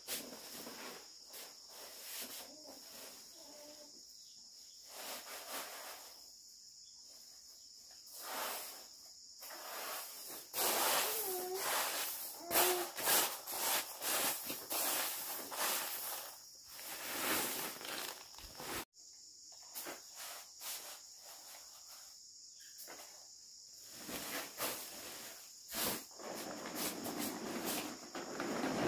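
Paddy rice grains pouring out of a sack and being swept by hand across a plastic tarp, with repeated rustling and crinkling of the tarp. The busiest stretch is in the middle. A steady high insect chirring runs underneath.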